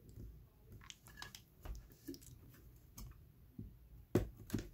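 Irregular small clicks and scrapes of pry tools working under an iPad Air 2 battery to lever it out of the frame, with two sharper knocks near the end.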